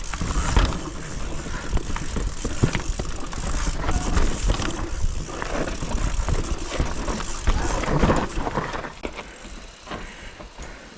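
Mountain bike descending a steep trail: tyres on dirt and the bike rattling and clicking over rough ground, with wind rumbling on the microphone. It gets quieter in the last couple of seconds.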